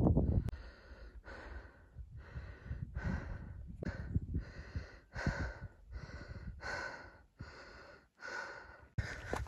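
A hiker's heavy, rhythmic breathing from the climb, about one and a half breaths a second, with a few faint low thuds. A loud low rumble on the microphone stops within the first half-second.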